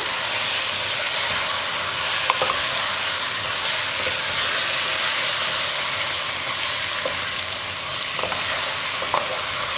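Marinated chicken pieces and fried onions sizzling steadily on high heat in a non-stick pan, stirred with a spatula that scrapes and taps lightly a few times.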